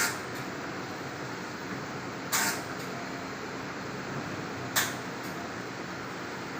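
Bottle washing machine running steadily, with a short, sharp hissing blast repeating about every two and a half seconds.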